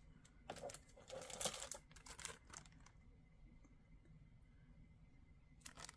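Plastic sticker packaging crinkling as it is handled: a cluster of short rustles in the first two or three seconds, then one more brief rustle near the end.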